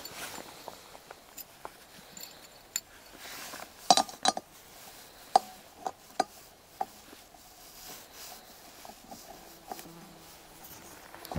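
Small metal clicks and clinks as a small camping stove is handled, screwed onto an MSR gas canister and its pot supports folded out. The clicks come singly and irregularly, the loudest about four seconds in.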